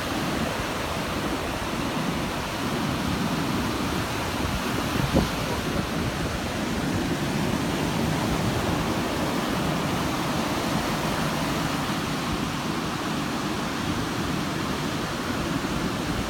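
Sea surf washing onto a beach, a steady rushing noise that swells a little, with one short knock about five seconds in.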